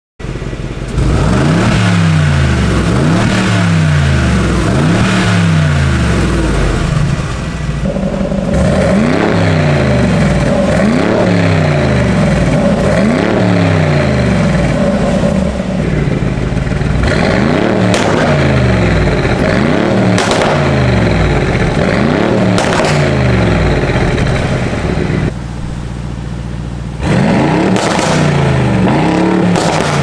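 Mercedes-AMG G63's twin-turbo V8 revved over and over through a catless-downpipe valvetronic exhaust, a quick rise and fall about every second and a half. The tone and level change abruptly a few times.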